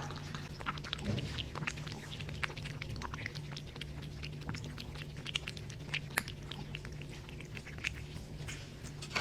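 A cat eating from its bowl up close, with irregular small clicks of chewing. A low steady hum runs underneath.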